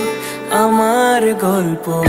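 Background music: a slow, tender melody line over a held low note, the melody gliding down near the end.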